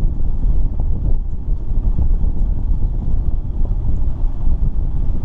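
Wind buffeting the microphone on an open boat: a steady low rumble.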